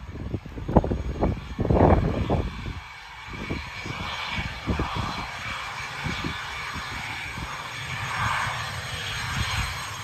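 An IAI Westwind business jet's engines running as it taxis, a steady jet noise. Irregular low rumbling from wind on the microphone is loudest in the first three seconds.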